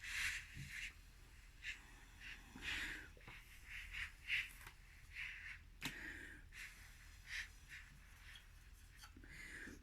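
A series of short, faint breathy puffs of someone blowing, one every half second to a second.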